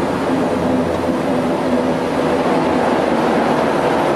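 Twin Pratt & Whitney PT6A-65AR turboprop engines and their propellers running steadily, heard from inside the cockpit, with the power levers pulled fully into reverse and the propellers in reverse pitch. A constant drone with a few steady tones in it.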